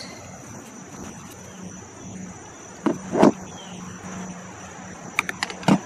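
A steady, high insect drone (crickets) runs throughout. Over it come a couple of knocks of metal tools on the work bench about three seconds in, and a quick run of small metallic clicks near the end as a bolt is worked off the compressor by hand.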